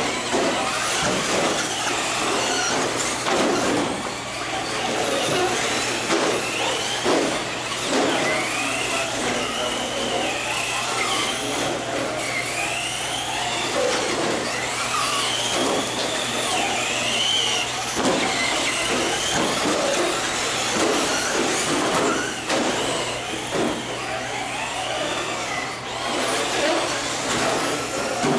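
Electric Traxxas Slash RC short-course trucks racing on carpet. Their motors whine up and down in pitch as the trucks speed up and slow for the corners, over a constant rush of tyre and drivetrain noise with occasional short knocks.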